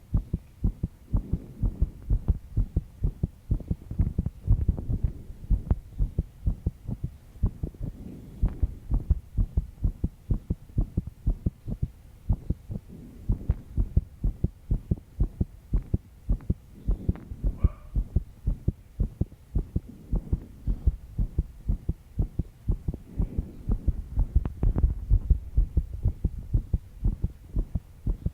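A young woman's heartbeat: a fast, even run of low lub-dub thumps, quickened by stress and lack of sleep.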